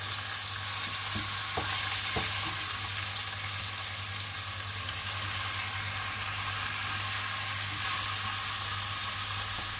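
Skinless chicken pieces frying in a pan with a steady sizzle, with a few light taps between one and two and a half seconds in.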